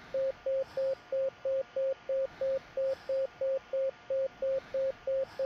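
Pulse oximeter beeping once per heartbeat: a steady, even, mid-pitched beep about three times a second. The fast pace tracks a racing pulse of around 185 per minute, the child's tachycardia from dehydration.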